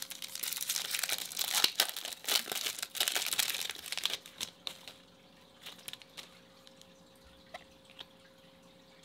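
A foil trading-card pack wrapper being torn open and crinkled by hand, a dense crackling for about the first four seconds. After that, only a few scattered light clicks as the cards are slid out and handled.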